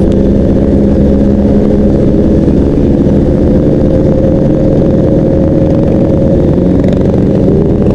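Motorcycle engines running at a steady cruise, an even engine hum over road and wind rumble, with no rise or fall in pitch.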